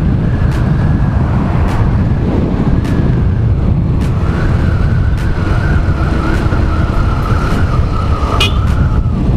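Riding noise of a single-cylinder motorcycle at cruising speed: engine running with heavy wind rush on the camera microphone. A steady high whine joins about four seconds in and holds until near the end.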